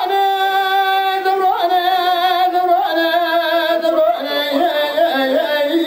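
A man singing a Kurdish dengbêj song unaccompanied into a microphone. He holds long notes, each a step lower than the one before, and breaks into a wavering, ornamented run near the end.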